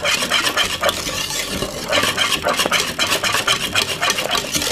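Wire whisk stirring thick cornmeal porridge in a metal pot: a fast run of scraping strokes against the pot, easing off briefly about a second and a half in.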